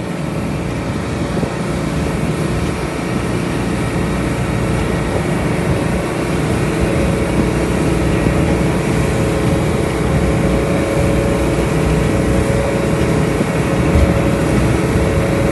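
Motorboat's outboard engine running steadily at speed while towing a water skier, over a constant rush of wind and water.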